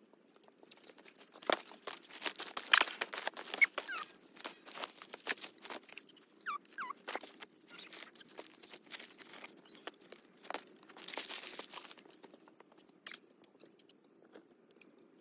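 Rustling, crunching and knocking of plastic nursery pots, dry plant stems and soil being handled as potted plants are moved about. The crunching comes thickest about two seconds in and again near the end.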